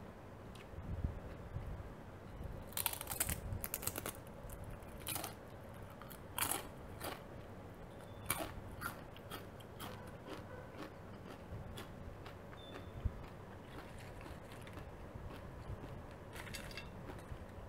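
Doritos Nacho Cheese tortilla chips being bitten and chewed close to the microphone: a run of crisp crunches from about three to nine seconds in, then softer chewing, with a brief crackle near the end.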